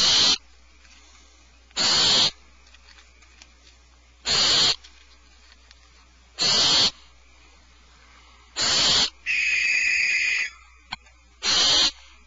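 Barn owl nestlings giving their hissing, snore-like begging calls, one harsh half-second hiss about every two seconds. About nine seconds in a longer, more tonal screech lasts just over a second.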